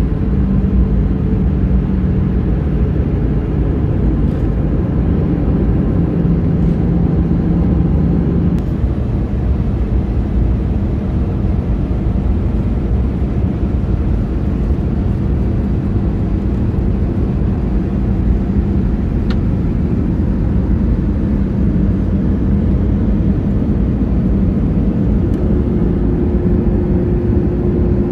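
Inside the cabin of an Airbus A319 airliner on its descent to land: a steady rush of engine and airflow noise with a low engine hum. The hum changes pitch about eight seconds in, and a new, higher hum comes in near the end.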